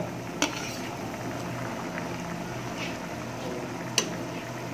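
Tomato-based minestrone soup simmering in a pan, a steady bubbling, with two sharp clinks of a metal ladle: one about half a second in and one near the end.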